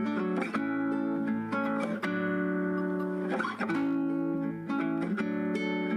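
Background music: guitar playing plucked chords in a steady rhythm.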